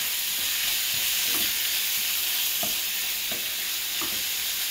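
Minced mutton sizzling in a nonstick frying pan while a wooden spatula stirs and scrapes through it. The steady frying hiss is broken by soft scraping strokes roughly once or twice a second.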